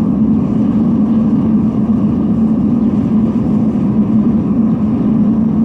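Forced-air melting furnace burner giving a steady low roar while the furnace heats up with its air turned up.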